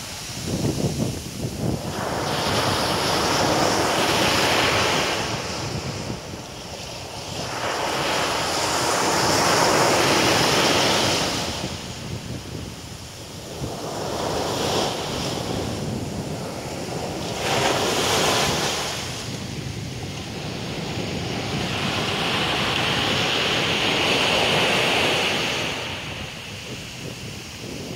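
Pacific Ocean surf breaking and washing up a sandy beach, rising and falling in swells every several seconds, with wind buffeting the microphone.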